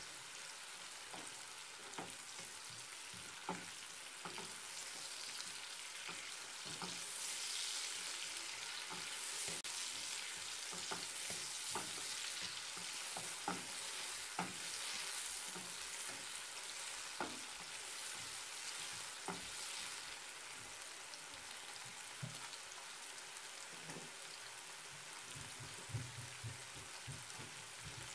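Onions frying in hot oil in a nonstick pan, sizzling steadily while a plastic spatula stirs them, with scattered taps and scrapes of the spatula on the pan. The sizzle grows louder for a stretch in the middle.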